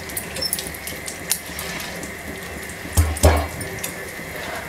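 Mustard seeds, cumin and urad dal frying in hot oil for a tempering: a steady sizzle with scattered small pops, and one louder knock about three seconds in.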